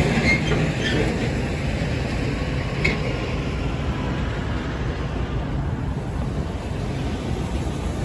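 Steady low rumble of idling engines and machinery at a ferry terminal, with a few short clicks and knocks near the start and about three seconds in.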